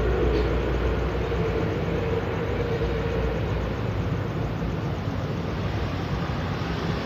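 Steady traffic noise from a toll road close by, vehicles passing continuously with a low rumble and hiss. An engine hum rides on top and fades out about three and a half seconds in.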